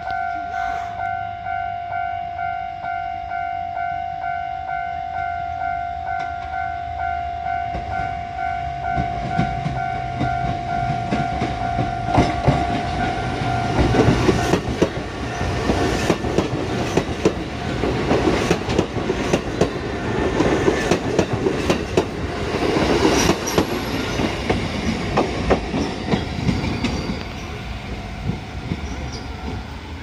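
Japanese level-crossing warning bell ringing steadily, about two strokes a second, for roughly the first half. A four-car Kotoden electric train (1070 and 1080 series) then passes close by with rumble and clickety-clack of wheels over rail joints, easing off near the end.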